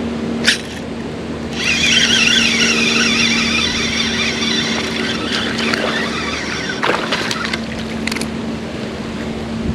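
Fishing reel whirring with a wavering high pitch for about five seconds as line runs on the spool, over a steady low hum; a sharp click comes about half a second in, and a few clicks near the end of the whirring.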